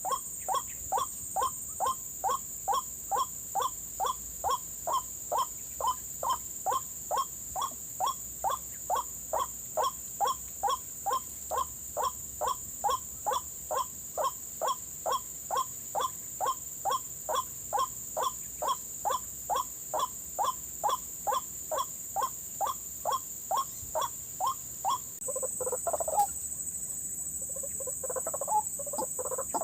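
White-breasted waterhen calling, a short call repeated about twice a second at a very even pace; a little before the end it breaks into louder, more jumbled calling. A steady high-pitched whine runs underneath.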